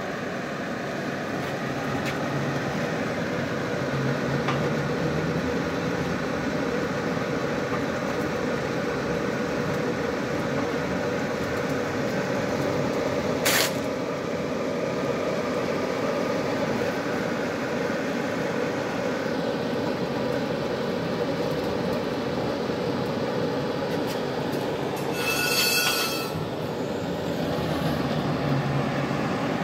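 Automated pipe-cutting machine running steadily as its torch head tracks a marked hole around a large steel pipe. A single sharp click comes about halfway through, and a brief high-pitched tone sounds near the end.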